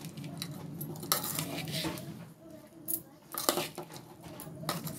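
Puffed rice mix being tossed and stirred by hand in an aluminium bowl: dry rustling and scraping, with a few sharp knocks against the bowl's side, over a steady low hum.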